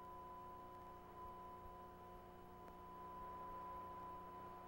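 Faint, steady electronic tones and hiss. The highest and loudest is a thin tone at about 1 kHz, with a few quieter steady tones below it; there is no music or speech.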